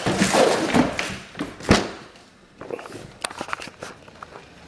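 Knocks and thuds, the loudest a sharp knock a little before the middle, followed by a run of lighter clicks.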